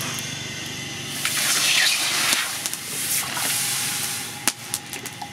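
Hot leaf-spring steel machete blade being slowly quenched in a water trough: a loud sizzling hiss of boiling water and steam starts about a second in, swells, then fades over about three seconds. Scattered sharp crackles sound throughout.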